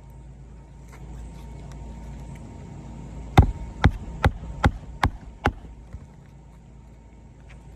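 Hammer driving a roofing nail into an asphalt shingle: six sharp strikes in quick succession, about two and a half a second, starting a few seconds in.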